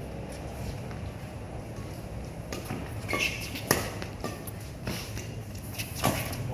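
Badminton rackets striking a shuttlecock in a fast doubles rally: a string of sharp hits starting about two and a half seconds in, roughly one every half second to second, the loudest near the middle.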